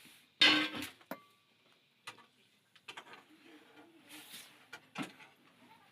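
A few sharp clicks and knocks, one of which rings briefly with a metallic tone, after a short loud pitched sound about half a second in.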